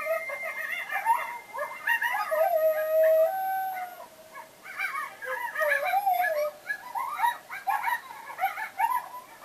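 Recorded coyote pack played through a speaker: a chorus of quick high yips mixed with wavering, held howls. The calling drops off briefly about four seconds in, then the yipping starts up again.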